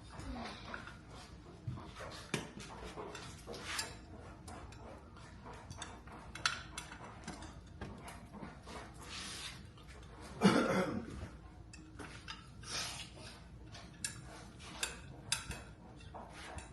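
Scattered clinks and knocks of things being handled, with one louder, brief pitched sound about ten and a half seconds in.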